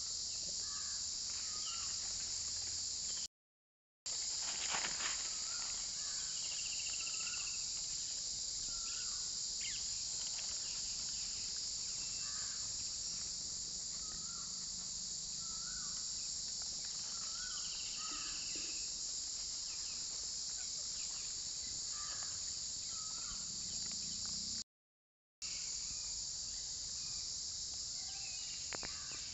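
A steady, high-pitched chorus of insects shrilling without a break, with scattered short bird chirps over it. The sound cuts out completely twice, for under a second each time.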